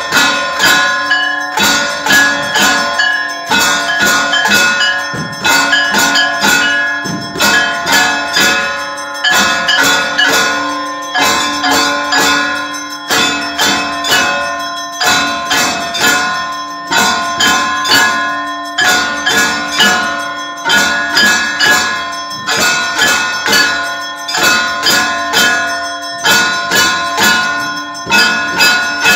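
Hindu temple bells rung rapidly and without pause, in loud metallic strikes several times a second over a lingering ring, as during a lamp-offering aarti.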